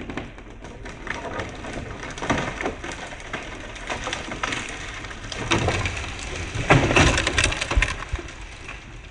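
A big dead ash tree cracking and splintering as it falls, branches snapping and crashing down, with the heaviest crashes about seven seconds in.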